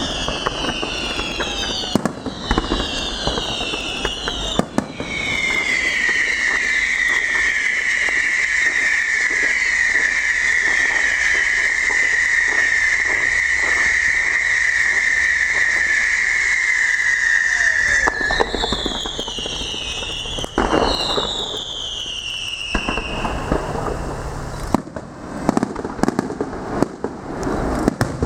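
Fireworks going off: crackling bursts and bangs, with repeated falling whistles. About five seconds in, a long steady high whistle starts and holds for roughly thirteen seconds before it breaks off into more falling whistles.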